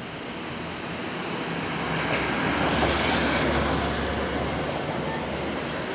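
City street traffic noise at the roadside: a steady rumble of passing vehicles that swells louder about two to three seconds in and then eases off.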